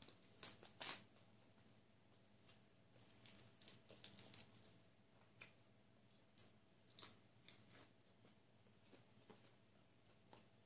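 Crisp lettuce leaf being torn apart by hand: two sharp rips in the first second, a cluster of smaller tears and crackles a few seconds in, then scattered soft clicks.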